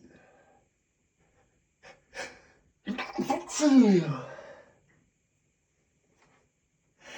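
A man's sneeze that he tries to stifle: two short gasping breaths in, then about three seconds in a sneeze that breaks through with a few sharp bursts and a loud voiced cry falling in pitch, lasting under two seconds.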